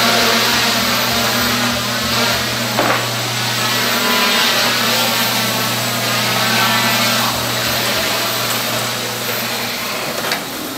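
Hobbyking SK450 quadcopter hovering: its four NTM 28-26 1000KV brushless motors and 8x4.5 propellers give a loud, steady whirr and buzz, the pitch wavering up and down as the flight controller trims the motor speeds.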